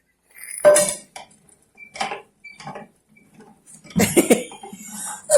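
Irregular metallic clanks and scrapes from a hand-cranked metal grain grinder being turned, the loudest a little after four seconds in.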